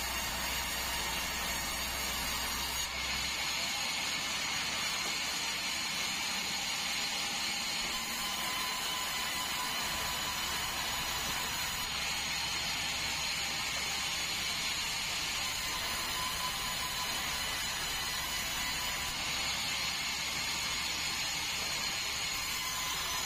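Sawmill band saw running steadily, a continuous mechanical noise with several steady high tones.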